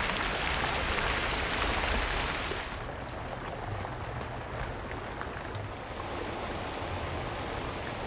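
Fountain water splashing in a steady hiss. About three seconds in it turns softer and duller, the splashing of a pool's arcing water jets.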